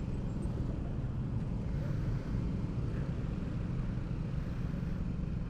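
Honda CB150R's single-cylinder engine running steadily under way, mixed with a steady low rumble of wind and road noise.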